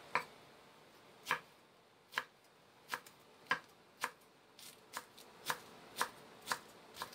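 Kitchen knife slicing a cabbage into shreds on a wooden cutting board: a series of sharp knocks of the blade on the board, about a second apart at first, then quickening to about two a second.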